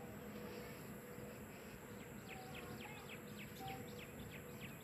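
Faint outdoor background hiss with a bird calling out of sight: from about two seconds in, a rapid run of short notes, each falling in pitch.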